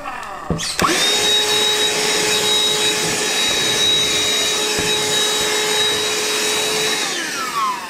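Handheld vacuum cleaner switched on: its motor whines up to speed about a second in, runs steadily while sucking up sanding dust, then winds down near the end.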